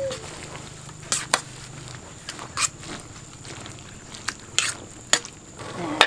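Slotted metal spatula clinking and scraping against an aluminium pot as cassava leaves are stirred in boiling water. There are several sharp clinks over a low steady hiss, and the loudest clink comes right at the end.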